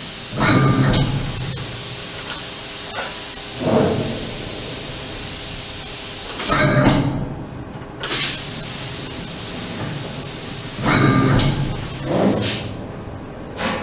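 SafanDarley E-Brake B servo-electric CNC press brake running through its motions: several short bursts of servo drive whirring as the machine moves, over a steady hiss.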